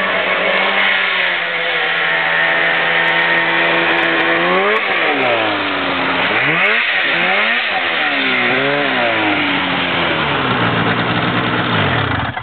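Snowmobile engine running, held at a steady pitch at first, then revving up and down several times from a little before halfway.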